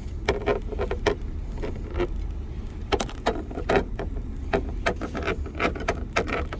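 Irregular clicks and knocks, some with a brief ring, over a steady low hum.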